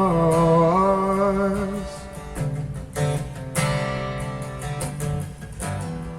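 A singer's held final note ends about two seconds in, then acoustic guitar strumming chords carries on alone as an instrumental passage.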